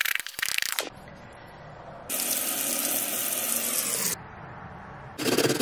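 A few knife strokes on a wooden cutting board at the very start. Then a kitchen faucet runs into a stainless steel sink for about two seconds and cuts off suddenly.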